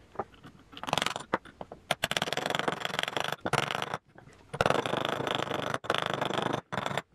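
A brass fitting being spun by hand onto the threaded end of a jointer cutter-head shaft, metal threads rasping, to press a ball bearing onto the shaft. The rasping comes in several spells with short pauses and starts about a second in.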